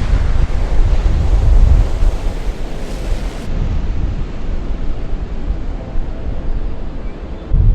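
Sea surf breaking and washing up a sandy beach, with wind buffeting the microphone in a heavy low rumble that eases in the middle and comes back hard near the end.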